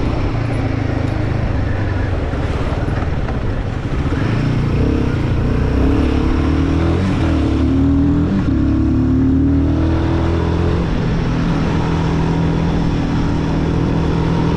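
Royal Enfield Guerilla 450's single-cylinder engine running while riding, with wind and road noise. The engine pitch rises and falls several times about halfway through.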